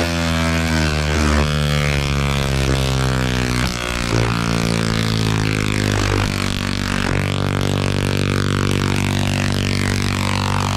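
A large dual-resonant solid-state Tesla coil (DRSSTC) sends long arcs into the ground with a loud, harsh buzz at a steady pitch, over a crackling hiss. The pitch, which is set by the interrupter's pulse rate, shifts about 4 seconds in and again about 6 seconds in.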